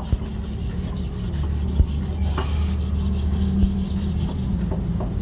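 Emery paper rubbing over a motorcycle part: a continuous scratchy sanding to take out marks before painting. Underneath runs a steady low hum that grows louder about a second in, with a few short knocks.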